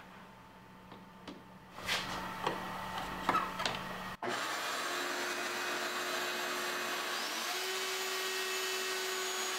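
Clicks and knocks as a Craftsman plunge router and its guide-rail jig are handled, then from about four seconds in the router runs steadily, plunge-cutting a mortise, with a dust-extraction vacuum drawing through a hose on its base.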